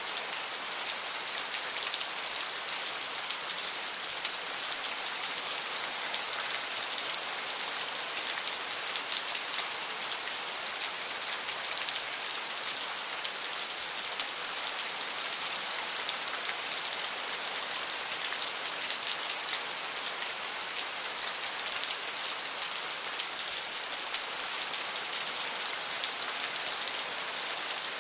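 Steady rain falling, an even hiss with a fine patter of drops that stays level throughout.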